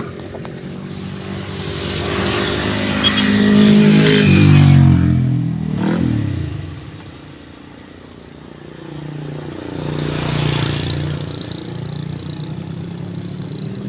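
Motor vehicles passing by, their engine pitch rising and then falling as each goes past. The loudest pass comes around four to five seconds in and a second one around ten seconds.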